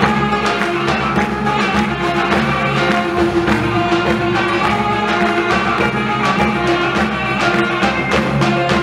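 Live folk ensemble playing an instrumental passage, with a bağlama (long-necked Turkish lute) among the instruments, over a steady percussive beat.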